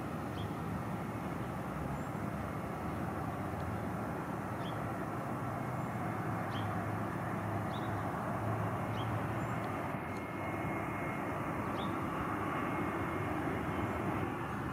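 Airbus A320's IAE V2500 jet engines on final approach to land: a steady, even rush of engine noise.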